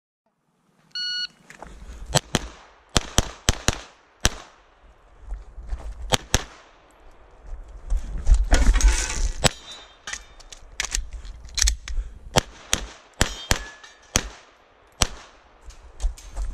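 A shot timer's start beep about a second in, then rapid fire from a semi-automatic handgun. Shots come mostly in quick pairs, with short pauses between strings.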